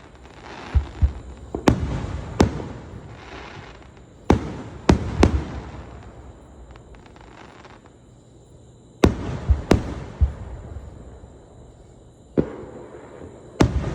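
Fireworks display going off close by: sharp bangs in clusters with low booms and crackling between them, easing to a lull midway before more bangs about nine seconds in.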